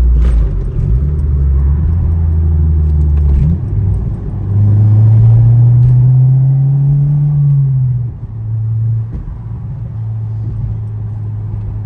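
Acura RSX's K20 four-cylinder engine under hard acceleration: a low loud drone that jumps in pitch at a gear change about three and a half seconds in. The revs then climb steadily until the throttle comes off around eight seconds in, and it settles to a quieter steady cruise. The car is pulling without wheel hop on its lighter new wheels.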